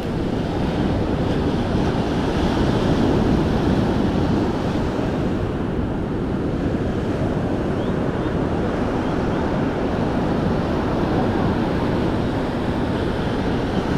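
Surf rolling and breaking on the shore as a continuous wash of noise, with wind buffeting the microphone.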